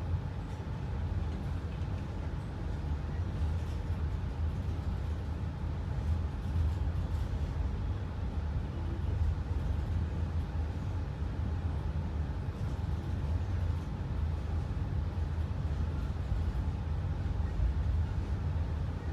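Passenger train running along the track, a steady low rumble with a few faint clicks.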